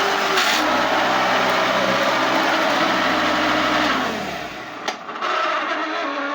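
Hoover Elite 2 bagged upright vacuum cleaner running steadily at full speed, then switched off about four seconds in, its motor winding down in pitch. A couple of sharp clicks follow.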